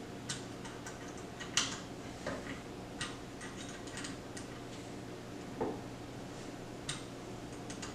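Irregular light clicks and taps of small metal parts and an Allen wrench being handled while fitting crossbow mounting hardware, the loudest about a second and a half in, over a steady low hum.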